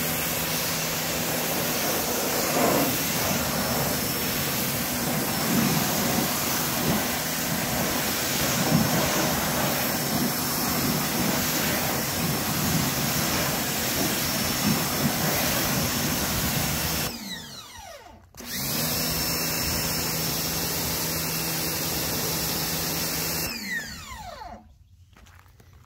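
Sun Joe electric pressure washer running under load, its motor and pump humming steadily under the hiss of the water jet striking the car's wheel and body. About 17 seconds in the motor winds down and starts up again. Near the end it winds down and stops.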